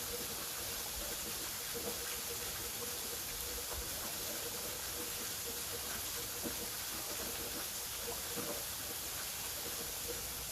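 Waterfall running steadily: an even, unbroken rush of falling water with a hiss-like top.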